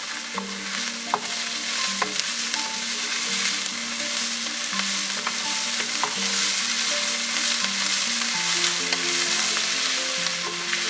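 Food sizzling as it fries in a pan while being stirred, with scattered clicks of the utensil against the pan. Soft background music plays underneath.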